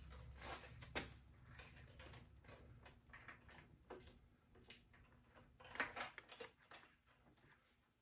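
Faint scattered clicks and light rustles of hands handling wiring and parts on a motorcycle, with the clearest clicks about a second in and around six seconds, against near-quiet room tone.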